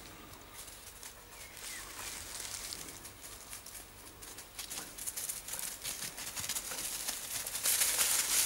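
Rustling and crackling of dense brush and dry twigs as someone pushes through the undergrowth. It grows louder near the end.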